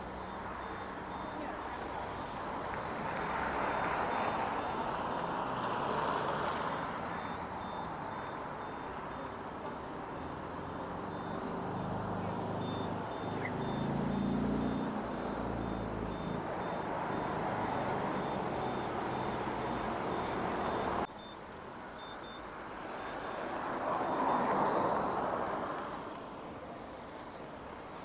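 City street traffic: cars passing one after another, swelling and fading, with a heavier engine rumbling for a few seconds in the middle. A faint, rapid high ticking runs under it until the background drops abruptly about three-quarters of the way through.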